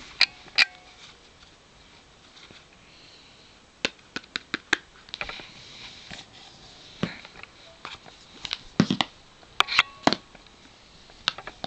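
Handling noise close to the microphone: scattered sharp clicks and taps, in small clusters, as an iPhone 4 box, its charger and cable are picked over by hand.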